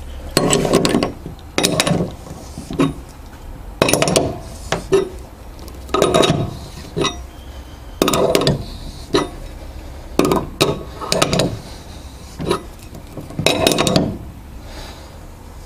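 Hand-operated rivnut installation tool being worked to set a rivnut in thin sheet metal: repeated short bursts of metallic clicking and clinking, one every second or two.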